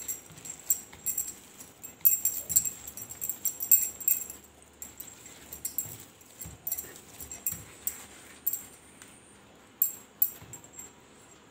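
Hand kneading a soft dough of soaked flattened rice, mashed potato and flour in a steel plate: irregular sticky squishes and sharp little clicks. They come thick for about the first five seconds, then thin out.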